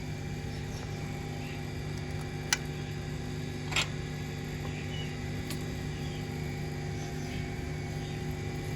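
Steady low mechanical hum made of several fixed tones, with two short sharp clicks, the first about two and a half seconds in and the second about a second later.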